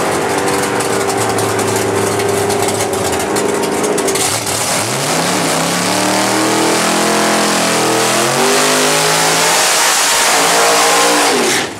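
Drag car's engine running at a steady fast idle, then revved up about five seconds in and held high for a burnout, with a loud hiss building over the engine; the revs drop off just before the end.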